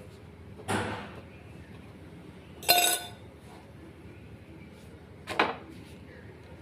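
A metal fork pricking a flatbread and clinking three times against the dish beneath; the middle strike is the loudest and rings.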